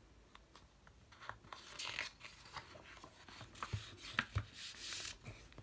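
A page of a hardback picture book being turned and smoothed flat by hand: paper rustling, with a few light taps and clicks in the middle.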